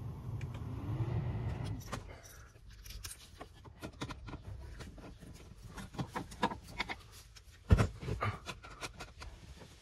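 Small clicks and taps of plastic and metal as the recirculation-flap actuator and its housing behind a VW Golf 5 dashboard are handled, with one sharp knock near the end. A steady hum with a short rising tone runs for about the first two seconds, then stops.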